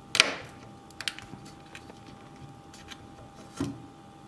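Plastic housing of a small sensor cracking as a knife blade pries its ultrasonically welded seam apart: a sharp snap about a quarter second in, a smaller click about a second in, and another crack near the end, with faint ticks of the blade between.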